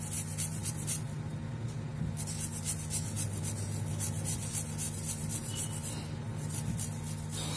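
Garlic cloves rubbed quickly back and forth on a flat stainless steel grater, a rhythmic rasping of many short strokes, with a pause of about a second early on and a shorter one near the end.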